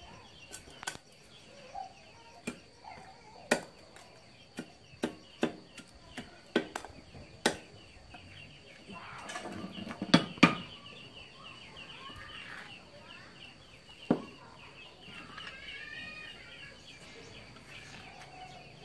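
Machete blade chopping a thin bamboo stick against a wooden stump: about a dozen sharp knocks at an uneven pace, most of them in the first eight seconds, two close together around ten seconds in and a last one around fourteen seconds in. Bird calls sound faintly behind.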